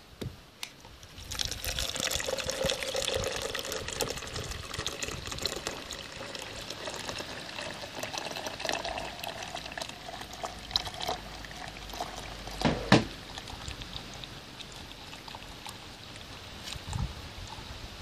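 Thin stream of hot water from a copper-pipe solar water heater's outlet trickling into a plastic measuring jug, louder for the first few seconds and then steadier as the jug fills. A single sharp knock partway through.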